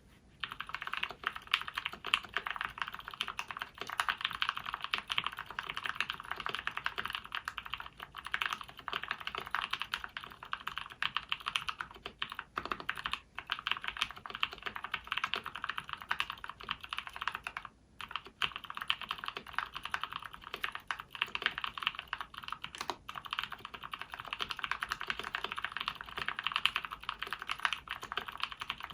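Continuous fast typing on a mechanical keyboard, a DZ60 board in a KBDfans Tofu acrylic 60 case with lubed SP-Star Purple switches: a dense patter of keystroke clicks, with a brief pause about 18 seconds in.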